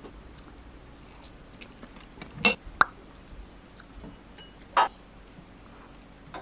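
Wooden chopsticks clinking against ceramic plates and a small dish: a few sharp clinks about two and a half seconds in and again near five seconds.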